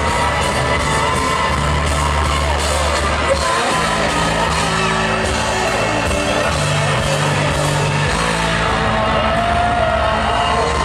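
Live rock band playing a loud instrumental outro, with a heavy bass line, drums and guitars over crowd whoops. There is one sharp crash about a third of the way through.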